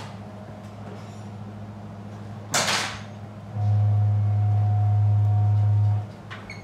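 Steady low machinery hum inside a steel ship's compartment, with one sharp bang about two and a half seconds in. Then a much louder low drone for about two and a half seconds that cuts off suddenly.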